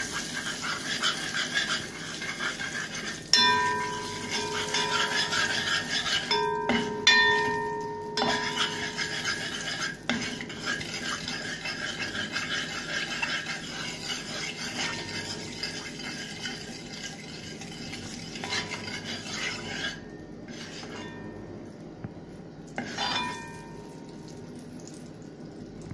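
Curry powder frying in hot oil in a pot, stirred with a metal spoon: a steady sizzle with scraping, and the spoon knocking the pot with a ringing clang a few times, around three and seven seconds in and again near the end. The curry is being "burned", toasted in the oil before the meat goes in.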